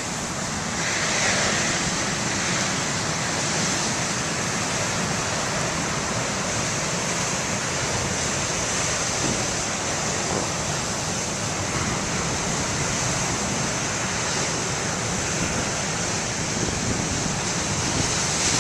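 Big ocean waves breaking as surf, a steady rush of churning water, with wind blowing across the microphone.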